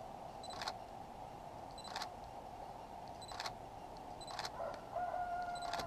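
Three-week-old puppy giving one drawn-out whine near the end, over a steady faint hiss and soft clicks about every second and a half.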